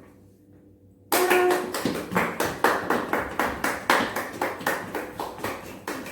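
Fast hand clapping: a quick, even run of about four to five claps a second that starts suddenly about a second in, after a short near-silent pause. It is the 'fast clapping' cue of a movement game, the signal to move quickly.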